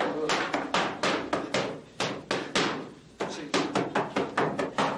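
Boxing gloves smacking leather focus mitts in fast punch combinations, about four sharp smacks a second, with a short pause about three seconds in.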